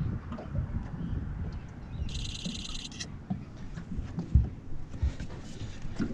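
Irregular low knocks and bumps of handling in a small fishing boat, the loudest about four seconds in, with wind rumble on the microphone. A short high buzzy trill sounds about two seconds in.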